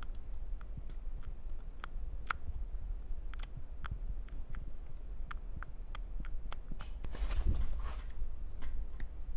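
Scattered light metallic clicks and ticks from a valve being handled in the cylinder head of a Willys F-134 Hurricane engine, its stem rocking in valve guides that are worn out. A brief rustle comes about seven seconds in.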